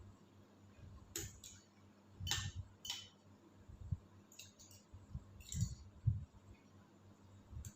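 Cutlery clinking against a dish while eating: about six short, light clinks spread unevenly, some with a brief ring.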